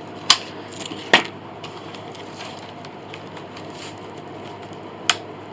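Three sharp knocks or clicks, two in the first second or so and one near the end, as the glued-up spruce soundboard panel is worked free of its clamps and the plastic sheet it was glued against.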